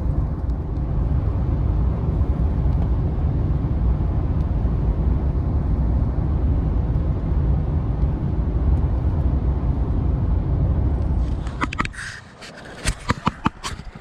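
Car driving: a steady low rumble of engine and road noise, which stops about twelve seconds in, followed by a few sharp clicks and knocks.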